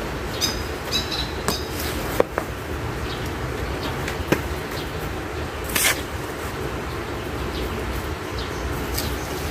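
Potting soil and a plastic pot being handled by hand during repotting: scattered light taps and scrapes, and a short rustle about six seconds in, over a steady low outdoor rumble. A few short high chirps in the first second and a half.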